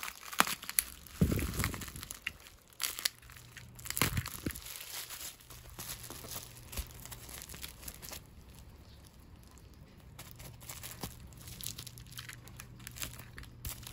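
Plastic bubble-wrap mailer crinkling and crackling as it is slit open with a small cutter and handled, with scattered sharp crackles and a couple of soft thumps in the first few seconds.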